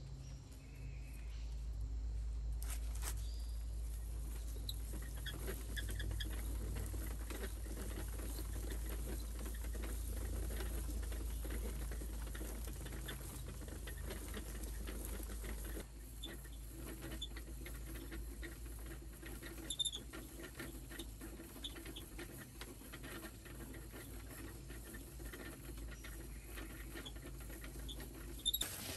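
Wooden-handled wicker pulley wheel cranked fast by hand, driving a clay fan blower by cord: a rapid run of light clicking, creaking and rustling from the wicker, the wooden axle and the cord, over a low steady rumble, with a sharper knock about three seconds in.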